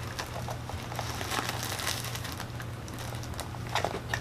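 Box packaging rustling and crinkling with small clicks and scrapes as a keyboard is worked out of its box, busiest from about a second in.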